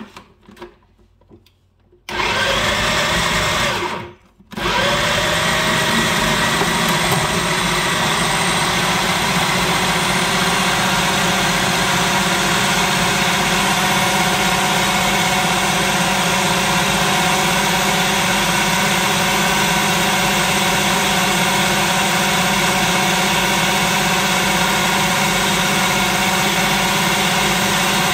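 Electric food processor chopping raw chicken with onion, bread and spices into a fine kofta mince. After a few small clicks as the lid and pusher are fitted, the motor starts about two seconds in, cuts out for a moment near four seconds, then runs loud and steady.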